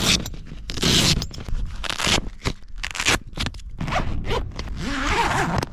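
A zip being pulled in a series of short strokes, about eight in all, over a low rumble of wind on the microphone.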